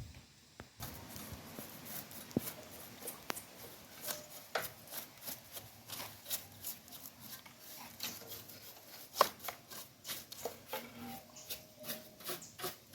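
Hands working on motorcycle parts: irregular scraping and rubbing with sharp clicks and taps, several a second.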